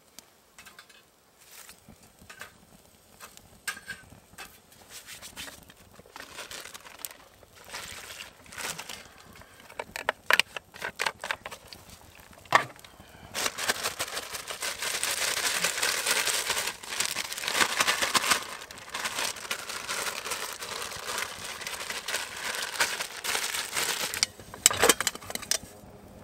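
Scattered small clicks and snaps, then from about halfway a plastic zip bag crinkling steadily for about ten seconds as it is handled, stopping suddenly; a few sharp knocks follow near the end.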